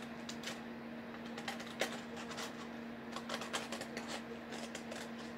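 Scissors snipping through a folded sheet of paper: a run of short, irregular snips and clicks of the blades as a heart shape is cut, over a steady faint low hum.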